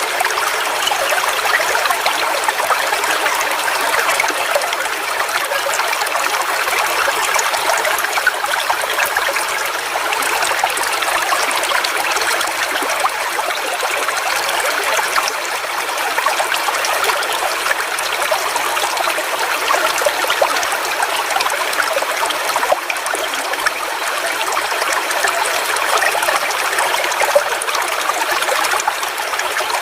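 Forest waterfall: water falling and splashing in a steady, even rush with little deep rumble, unchanging throughout.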